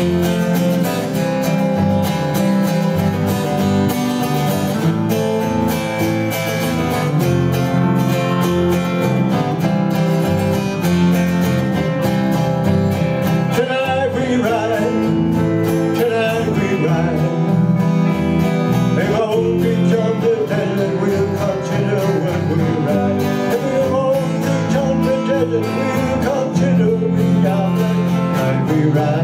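Live band playing an instrumental break: strummed acoustic guitar with bass guitar and electric guitar, in a country-rock style.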